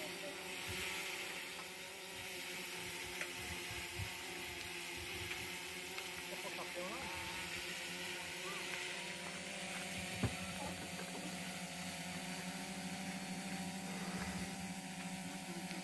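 Quadcopter drone on an F450 frame hovering, its electric motors and propellers giving a steady hum of several stacked tones. There is a single sharp click about ten seconds in.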